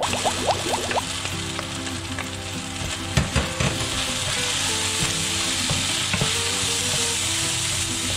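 Coconut filling sizzling steadily in a hot pan as milk cooks into the butter, grated coconut and brown sugar, with a wooden spoon scraping and knocking against the pan as it is stirred.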